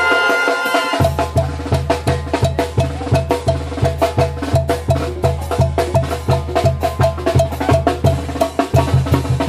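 Street brass band (banda) playing: bass drum and snare keep a steady, even beat under held brass and woodwind tones from trumpets, trombone, clarinet and sousaphone. The drums come in about a second in.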